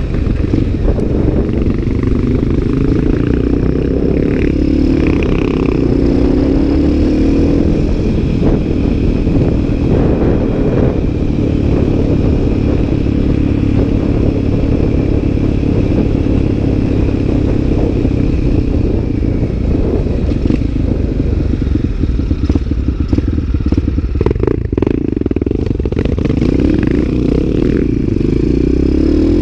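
Supermoto motorcycle engine running under way, recorded on board the bike. It holds a steady pace, with the revs rising and falling now and then and climbing again near the end.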